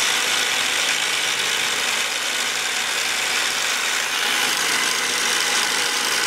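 Nolting long-arm quilting machine running steadily, its needle stitching down a raw-edge fabric appliqué.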